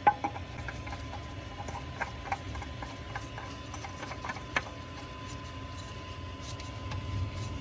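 Scattered light clicks and taps as a new spin-on oil filter is handled and threaded onto its mount by hand, over a low steady hum.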